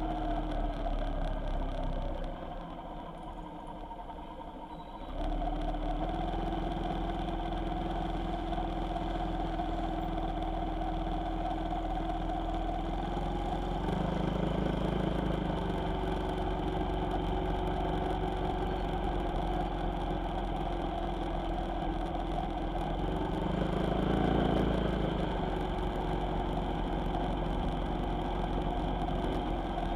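A vehicle engine running steadily, its note rising slightly twice. It drops quieter for about three seconds near the start, then comes back.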